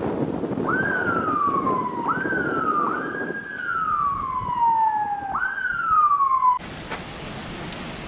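Emergency vehicle siren wailing: four sweeps, each climbing quickly and sliding slowly down, over wind noise on the microphone. It cuts off abruptly near the end, leaving a steady hiss.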